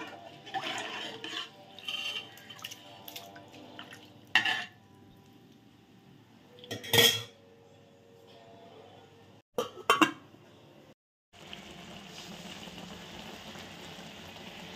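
A metal cooking pot and its lid being handled, with clatter at first and then a few separate sharp metal knocks and clinks. Over the last few seconds there is a steady, even hiss.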